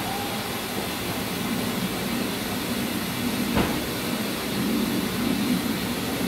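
British Rail Class 101 diesel multiple unit running slowly past along the platform: a steady rumble of engine and wheels that grows a little fuller in the second half, with a single short knock about three and a half seconds in.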